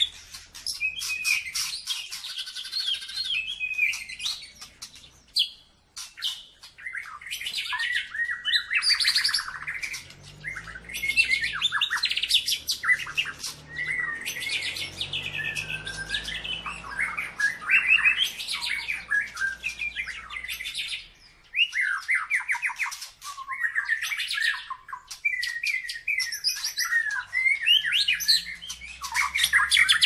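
White-rumped shama (murai batu) in full song: a fast, varied stream of whistles, rapid trills and sharp clicking notes, in long phrases with brief pauses about five and twenty seconds in.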